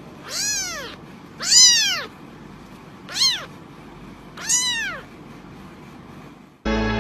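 Kitten meowing four times, each a short high mew that rises and falls in pitch. Music starts near the end.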